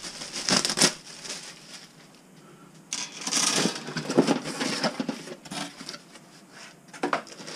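Cardboard box packaging and plastic wrap being handled: rustling, scraping and crinkling in a few short bursts with quieter gaps between.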